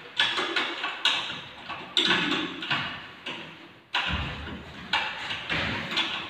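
A series of about five sharp knocks, roughly one a second with a pause in the middle. Each knock rings out and echoes in a large bare hall, like work blows during the mounting of a ceiling air-conditioner unit.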